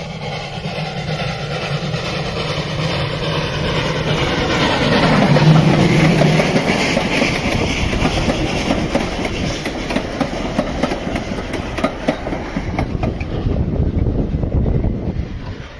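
A restored ex-South Australian Railways steam train climbing a grade passes close by. It grows louder as the locomotive approaches and is loudest about five or six seconds in; then its carriages clatter and click over the rail joints as they roll past, fading near the end.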